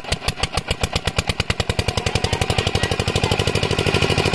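An 8 hp diesel water-pump-set engine that has just fired, running with a chugging exhaust beat. The beats quicken and grow louder as the engine picks up speed, settling into a fast, even chug.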